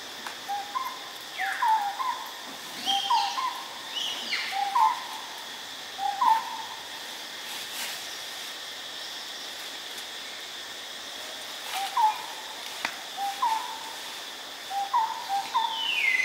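Short animal calls, one to three notes at a time, repeating every second or two over a steady high insect drone. A long falling whistle comes near the end.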